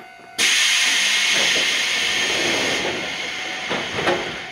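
Sudden loud hiss of compressed air let out from an Iyo Railway 3000 series electric train's pneumatic system, starting just under half a second in and fading over about four seconds.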